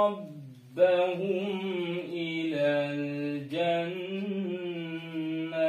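A young man chanting unaccompanied in a slow melodic style, holding long notes and stepping between pitches, with a short breath pause just under a second in.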